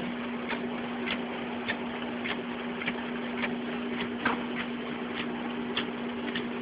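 Fujitsu fi-6800 production document scanner running: a steady motor hum with a regular click a little under twice a second as the sheets feed through.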